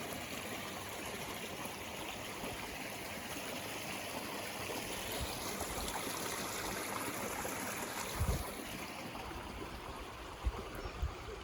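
A small stream running steadily, with a few brief low thumps near the end.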